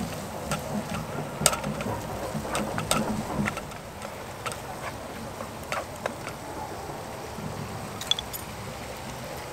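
A utensil stirring and scraping a small camp pan of simmering sauce on a spirit stove, with scattered light clicks against the pan. The handling is busiest in the first three or four seconds, then settles to occasional clicks over a faint steady simmer.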